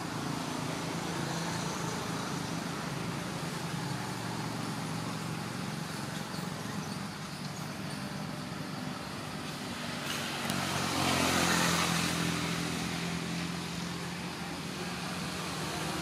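Road traffic: a steady low engine hum, with one motor vehicle passing louder, swelling and fading away between about ten and thirteen seconds in.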